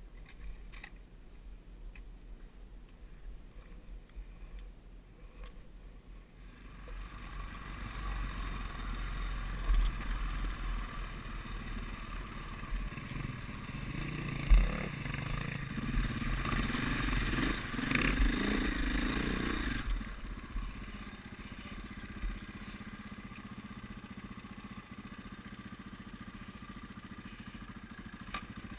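Off-road motorcycle engines on a forest trail. After a few quiet seconds with faint clicks, the engine sound comes up, louder and uneven through the middle with a couple of sharp knocks, then settles to a steadier, quieter run.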